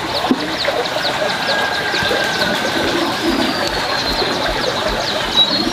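Small birds chirping quickly and repeatedly, with a pigeon cooing low about three seconds in, over a steady background hiss.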